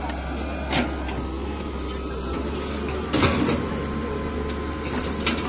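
Hand hoes and shovels chopping into hard earth, a few sharp strikes with the loudest about three seconds in, over the steady low running of a Caterpillar 320C excavator's diesel engine.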